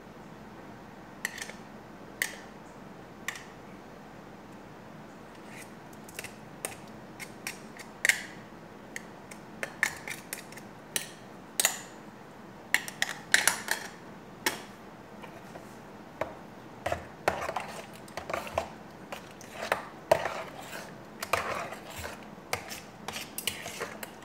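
Kitchen utensils clicking and clinking against dishes: scattered sharp clicks in the first half, then a quick, dense run of clinks and scrapes through the second half.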